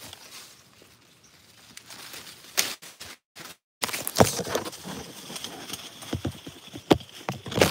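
Irregular knocks and rustles from footsteps and from a handheld phone brushing through leafy plants and grass, with the sound cutting out completely twice a little after three seconds in.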